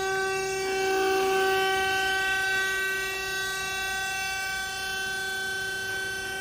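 Horizontal bandsaw running, its electric motor and gearbox giving a steady, even-pitched machine whine.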